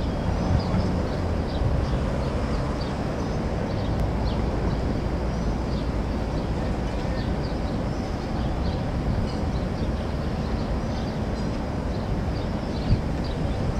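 Steady outdoor city ambience: a constant low rumble of wind on the microphone and distant traffic, with faint short high chirps scattered throughout.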